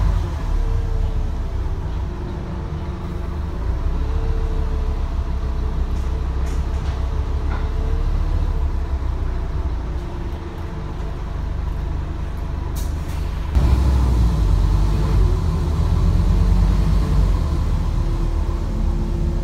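Scania N230UD bus's diesel engine running steadily with a wavering whine. About 13 s in there is a brief hiss of air, and right after it the engine suddenly gets louder.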